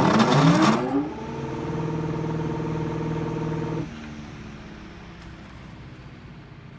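GE electric fan starting up: a loud burst of noise as it comes on, with a hum that rises in pitch as the motor spins up, then a steady motor hum. A little under four seconds in the hum drops to a quieter, lower whir.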